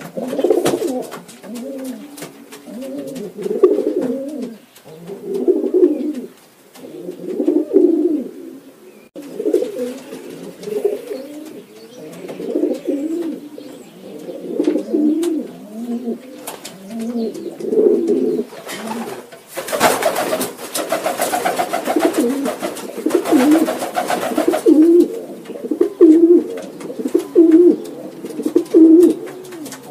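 A flock of domestic pigeons cooing, with many coos overlapping. About two-thirds of the way through there are a few seconds of rustling noise. Near the end the coos come in a steady run of about one a second.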